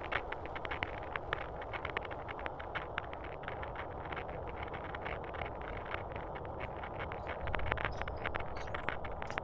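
Dense, irregular rattling and clicking over a steady rushing noise, like machinery clattering on. Near the end a thin, high whistling tone comes in.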